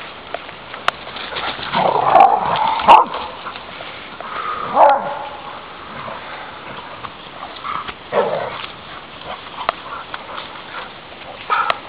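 Airedale terriers barking and yipping in three short outbursts, about two, five and eight seconds in, the first the longest and loudest.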